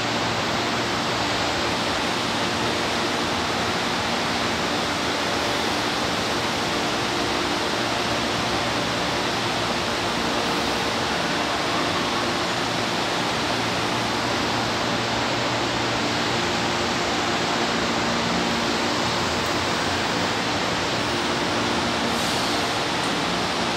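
Steady rushing hiss with a faint low hum from a metro train standing at the platform, its ventilation and auxiliary equipment running.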